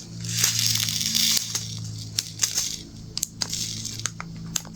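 Small plastic diamond-painting rhinestones poured from their bag into a sorting tray: a rustling hiss for about the first second and a half, then scattered small clicks as they settle. A steady low hum runs underneath.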